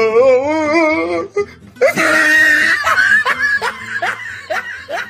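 Person laughing: a long wavering vocal sound, then a loud burst of laughter about two seconds in that breaks into short rising 'ha' pulses, about three a second, fading toward the end.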